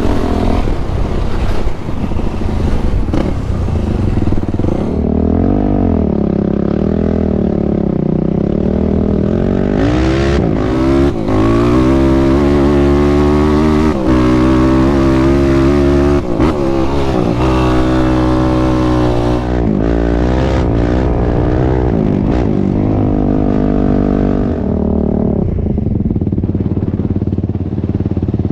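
Sport quad's engine under load, revving up and down with its pitch rising and falling again and again as it is ridden over sand dunes.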